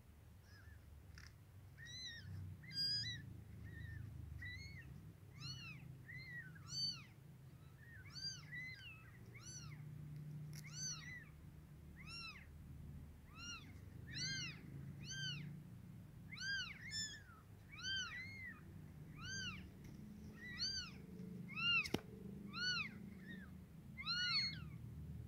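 Newborn kittens mewing: short, high-pitched, arching cries, one or two a second, over and over. A single sharp click sounds near the end.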